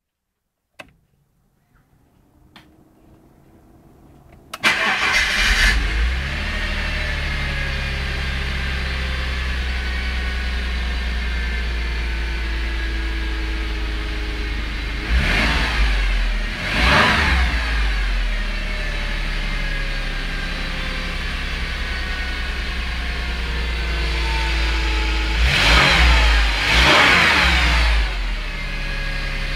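1991 Ford Scorpio Cosworth's 2.9-litre 24-valve V6, heard from the driver's seat: after a couple of clicks and a few seconds of a faint rising whir, it catches about five seconds in and settles to a steady idle. It is revved briefly twice, the second time for longer near the end.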